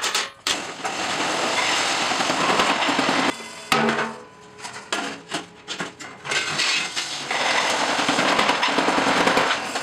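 Metalworking machinery in a steel bucket factory: two long stretches of harsh, rasping machine noise, with separate sharp metal knocks in the gap between them.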